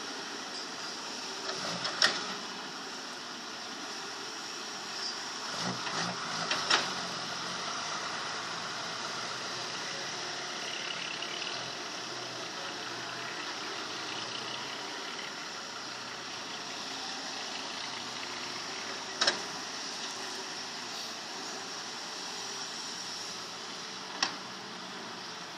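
Excavator engine running steadily while dredging, its sound somewhat rough because the machine is low-powered. A handful of sharp knocks stand out over it: one about two seconds in, a couple around six to seven seconds, and single ones near nineteen and twenty-four seconds.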